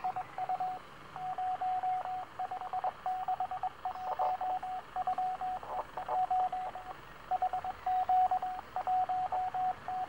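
Morse code (CW) signal heard on a Sangean ATS-909X shortwave receiver in upper-sideband mode: a single steady beep keyed on and off in dots and dashes, over background static hiss.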